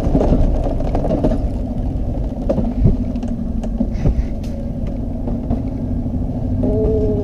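Mountain coaster sled running fast down its steel tube rail: a steady rumble with a few sharp clacks.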